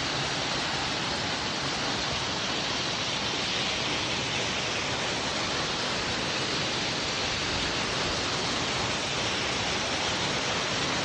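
Waterfall with water falling and splashing in a steady, even rush that does not change.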